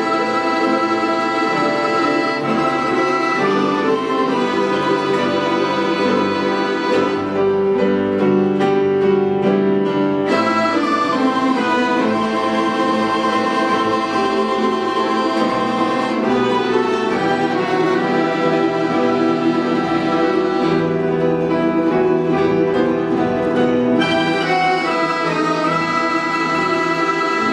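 Orchestra of Russian folk instruments playing a melody over held chords, without a break.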